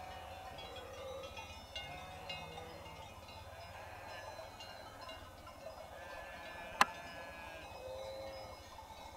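Sheep bleating now and then, over a steady scatter of high, bell-like clinks, with one sharp click about two-thirds of the way through.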